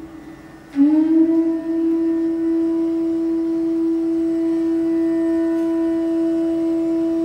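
Bansuri (Indian bamboo transverse flute) holding one long, steady note, entered about a second in with a short upward slide, after the previous note fades out softly.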